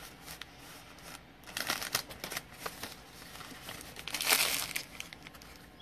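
Foil trading-card pack wrappers crinkling as the packs are handled, with a louder crackling burst about four seconds in as a wrapper is pulled open.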